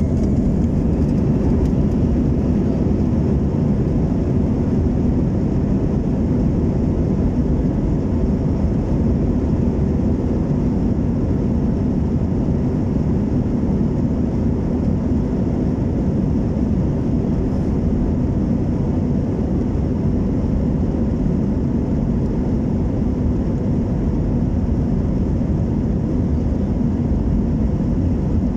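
Jet engines of an Airbus A320-family airliner at takeoff thrust, heard from inside the passenger cabin during the takeoff roll: a steady, loud, low rumble.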